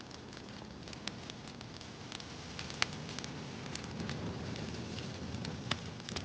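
Wood fire crackling: a steady hiss with scattered sharp pops, two louder ones about three seconds in and near the end.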